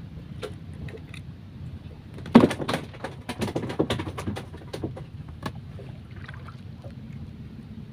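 Knocks and clatter on a small wooden boat being paddled, bunched in the middle with the loudest knock about two and a half seconds in, over a steady low rumble.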